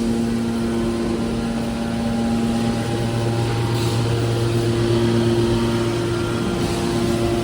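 Aluminum baling machine running: a steady mechanical hum from its motor and hydraulic pump, growing slightly stronger about three seconds in.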